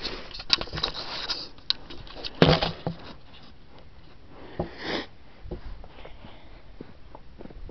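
Handling noise from a camera being carried and set down: rustling and knocks through the first three seconds, the loudest thump about two and a half seconds in. It then rests with only faint outdoor background.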